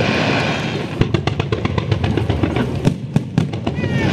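Aerial fireworks going off: a rapid string of sharp bangs with crackling between them.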